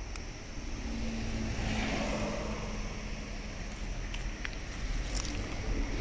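A motor vehicle passing on a nearby road: a steady engine hum that swells about two seconds in and then fades, over a low steady rumble.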